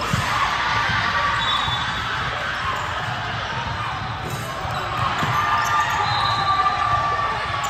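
Girls' basketball game on a hardwood court: the ball bouncing as it is dribbled, a few short high sneaker squeaks, and a steady murmur of spectators chatting in the gym.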